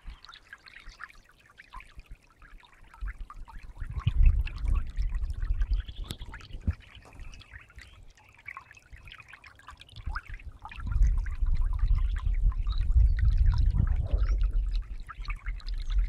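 Small, shallow forest stream running over stones and fallen leaves, close up. A low rumble comes in about four seconds in and again, louder, from about eleven seconds on.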